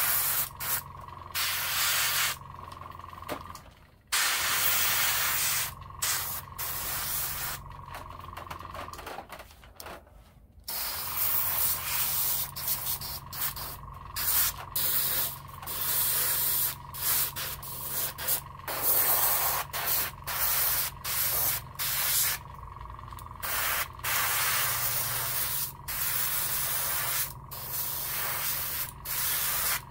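Gravity-feed airbrush spraying paint in many short on-off bursts, each a hiss of air lasting from a fraction of a second to a couple of seconds. A steady low hum runs underneath and drops out twice.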